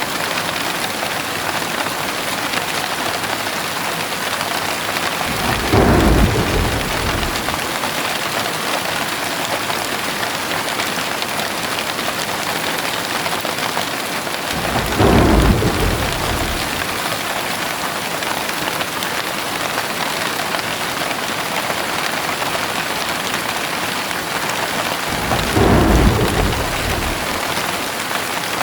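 Steady heavy rain with three low rolls of thunder, each lasting about two seconds, evenly spaced: one about six seconds in, one near the middle and one near the end.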